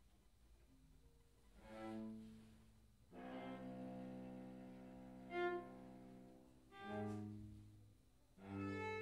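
Viola and cello duo playing slow, sustained bowed notes in a contemporary classical piece. It starts soft, swells, holds a chord from about three seconds in with a brief accent in the middle, and makes a louder entry near the end.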